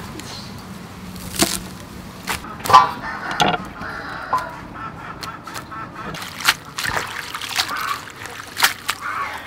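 Vegetables handled in a stainless steel bowl of water: rustling leaves, sharp clicks and knocks against the bowl, and water sloshing as they are washed.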